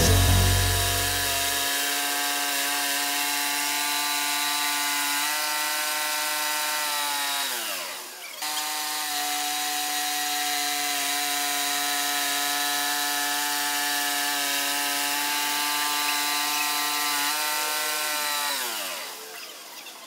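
Band sawmill running with its blade cutting through a squared log, a steady motor note with a sawing hiss over it. The motor's pitch falls away about seven seconds in, comes back abruptly, and falls again near the end as the machine winds down.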